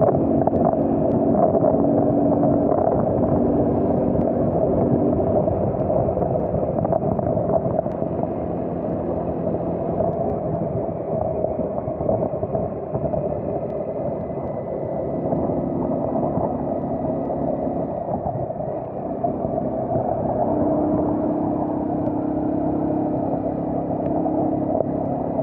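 Car driving on a rain-wet road: a steady drone of engine and tyres, with a low hum that comes and goes.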